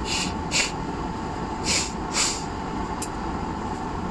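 A person blowing her nose into a tissue: two pairs of short hissy bursts.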